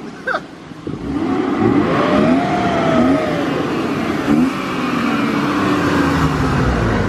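Car engine running and being revved, its pitch rising and falling, with a brief drop in level about half a second in before it picks up again.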